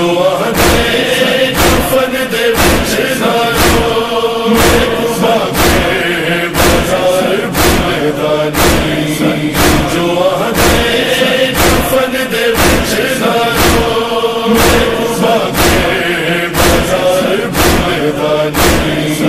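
A crowd of mourners chanting a noha in unison while doing matam, slapping their bare chests with open hands. The slaps land in a steady beat under the held, droning chant.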